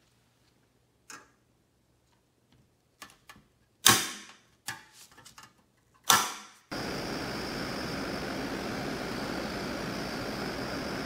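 Light metallic clicks and taps as sheet-metal locomotive parts are handled and fitted together, with two louder clanks that ring briefly, about four and six seconds in. Then a steady rush of air noise from the powder-coating booth starts abruptly.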